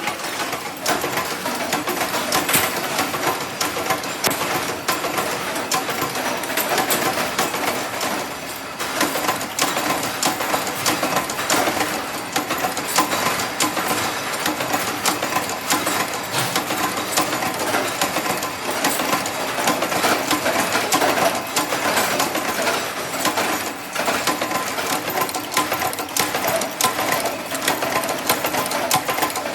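Workshop machinery running with a rapid, continuous mechanical clatter of dense clicks and rattles, dipping briefly about eight seconds in.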